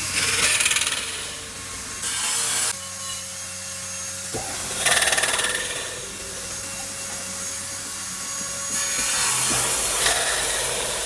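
Wood being cut or sanded by a power tool in four short passes, each a rasping hiss over a steady motor hum.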